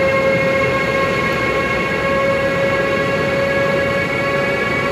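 Siemens Vectron electric locomotive pulling away with a container train: its traction converters and motors give a steady chord of whining tones, creeping slightly higher in pitch, over the rumble of the running train.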